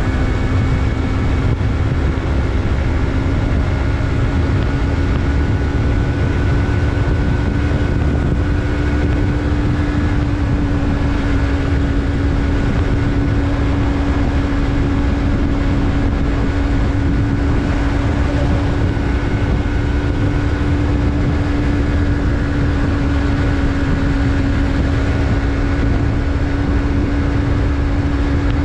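Yamaha MT-03's parallel-twin engine running at a steady cruise, its note holding almost the same pitch, over a heavy low rumble of riding noise.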